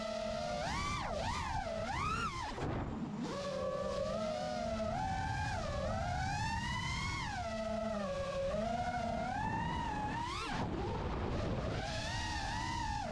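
FPV quadcopter's brushless motors whining, the pitch swooping up and down with the throttle through dives and turns, over a low rush of wind. The whine drops away briefly twice, about a fifth of the way in and again past three quarters, as the throttle is chopped.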